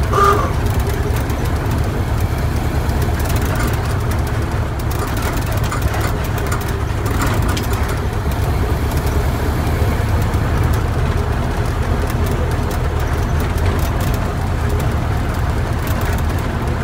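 A 1929 Ford Model A mail truck's four-cylinder engine and road noise heard from the driver's seat while cruising at steady speed. Over the even low rumble comes a light, constant rattling from the sliding door between the cab and the cargo area, loose on its hanging rollers.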